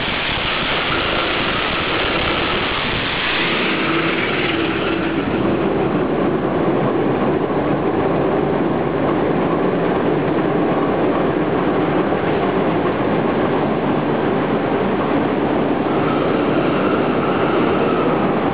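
SEMT Pielstick 16 PC2.6 medium-speed marine diesel main engines running, a loud, steady engine-room din.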